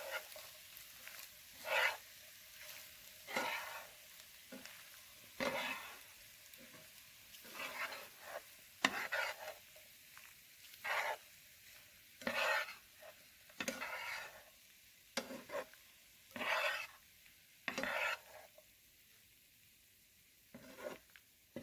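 Spatula stirring and tossing penne pasta in a frying pan: a dozen or so scraping strokes, with a short pause near the end, over a faint sizzle of the pasta frying.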